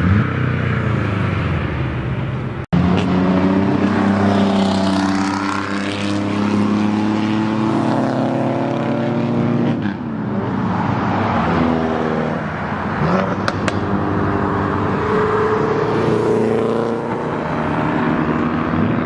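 Car engines revving and accelerating, their pitch climbing and dropping repeatedly as cars pull away and pass by. A split-second dropout breaks the sound about three seconds in.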